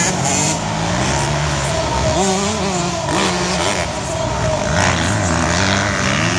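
Several motocross bike engines revving on the track at once, their pitch rising and falling again and again with the throttle and gear changes.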